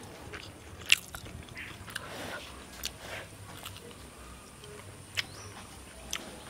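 Crunching and chewing of a crispy, deep-fried soya chunk pakora. There are several sharp crunches, the loudest about a second in and two more near the end.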